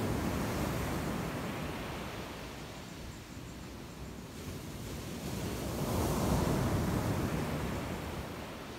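Ocean surf breaking on the shore, a steady wash of noise that eases off, then swells with a wave about six seconds in and fades again near the end.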